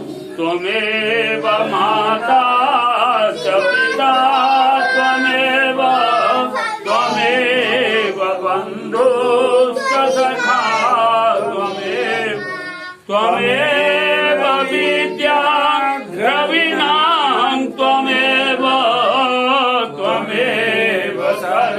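A group of voices chanting hymns together, the melody wavering up and down, with a short break about 13 seconds in. These are the devotional chants of a Rudrabhishek ritual.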